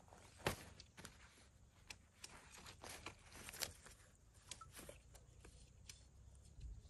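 Faint scattered clicks and light rustling from a tent pole being handled and fed into a tent. The sharpest click comes about half a second in, with another a little past the middle.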